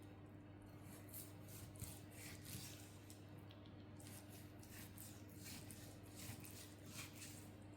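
Faint, repeated strokes of a knife slicing into a raw beef rump cap, scoring the meat and fat, over a low steady hum.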